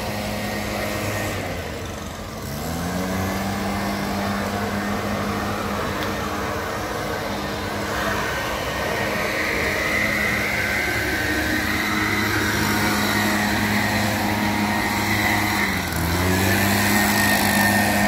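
A motor engine running steadily, its pitch dipping and climbing back twice: about two seconds in and again near the end.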